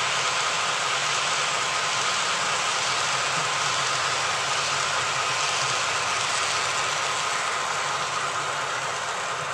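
A model train of tank cars rolling past on the layout's track, a steady hiss of small wheels on rail, over the idling diesel engine sound of a sound-equipped model CSX locomotive waiting in the siding.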